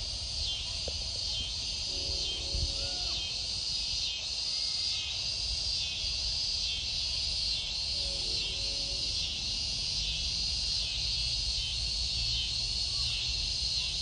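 Outdoor insect chorus, a high buzzing that pulses in a steady rhythm, over a low background rumble. A short, low-pitched sound comes twice, about two seconds in and again about eight seconds in.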